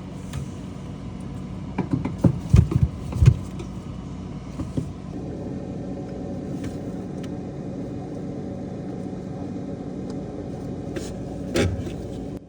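Steady hum of the running Frigidaire refrigerator, with a cluster of sharp knocks and clatters from plastic parts being fitted inside the freezer about two to three seconds in, and another knock near the end.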